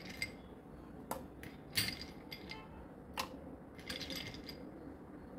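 A metal spoon scooping ice cubes from a glass bowl: several sharp, separate clinks of spoon, ice and glass, with pauses between.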